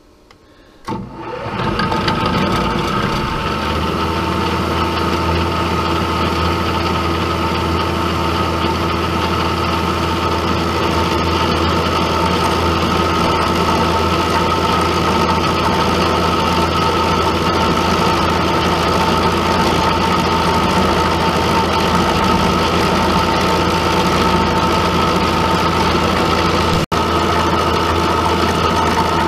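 Milling machine spindle starts about a second in and runs steadily with a whine, its 1/2-inch four-flute carbide end mill taking a light cleanup cut along an A2 tool steel bar. The sound breaks off for an instant near the end.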